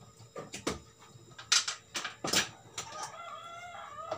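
A few sharp knocks and clicks, then a long wavering animal call starting about three seconds in.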